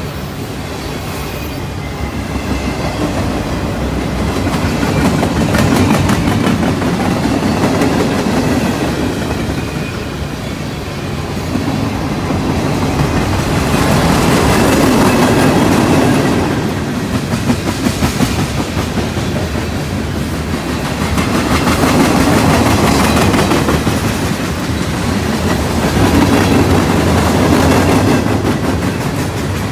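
Slow-moving mixed freight train's cars rolling past close by: a steady rumble and clatter of steel wheels on the rails. It swells and eases several times as the cars go by.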